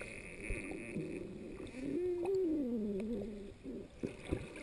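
Muffled underwater sound, then a person's voice humming or calling through the water, heard as one drawn-out tone that slides down in pitch over about a second and a half before fading.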